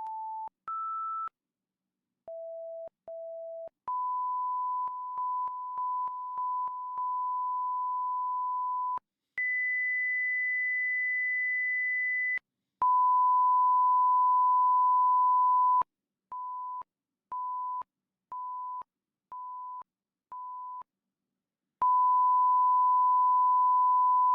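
Pure sine test tones from a 5.1 surround audio test file: a few short tones at different pitches, then a long steady tone, a higher tone held for about three seconds, another long tone, a row of five short beeps, and a final long tone, each separated by clean silence.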